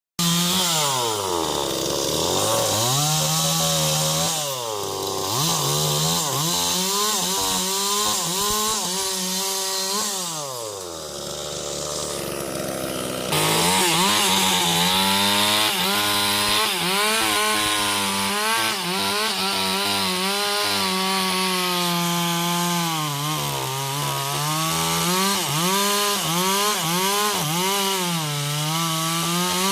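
Two-stroke chainsaw revving up and down several times, then running at high revs with short dips in pitch as it cuts sengon wood. The sound steps up suddenly about 13 seconds in.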